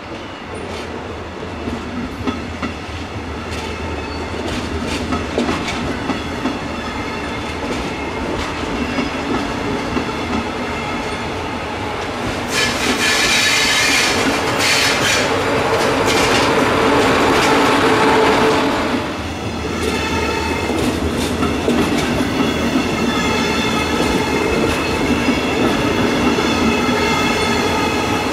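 Double-deck regional push-pull train passing close at speed: a rolling rumble that builds, with rhythmic wheel clicks over the rail joints. It is loudest about halfway through, as the electric locomotive pushing at the rear goes by with a hiss and whine, then the coaches roll past with a steady clickety-clack.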